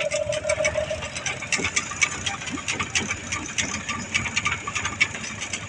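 Small boat engine running with a rapid, irregular mechanical clatter over a low rumble; a steady tone stops about a second in.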